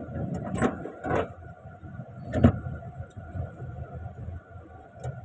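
Inside a truck cab: the engine and cab make a steady low rumble as the truck creeps along in slow traffic. Three short knocks or rattles sound about half a second, one second and two and a half seconds in; the last is the loudest.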